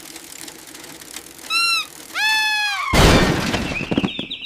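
Intro sound effects: two short squawk-like calls, then a loud crash about three seconds in, followed by a rising, warbling chirp.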